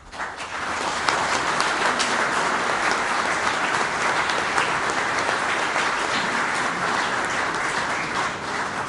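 Audience applauding: the clapping starts right away, fills out within about a second, holds steady and begins to die down near the end.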